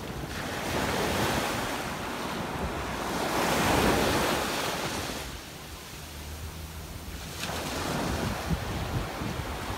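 Small surf breaking and washing up a sandy beach. The wash swells twice, dies down about five seconds in, then builds again as the next wave comes in near the end. Wind rumbles on the microphone.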